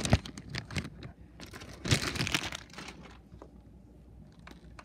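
Close rustling and crinkling handling noise. A sharp click comes right at the start, a louder rustle about two seconds in, and softer scattered clicks and rustles after that.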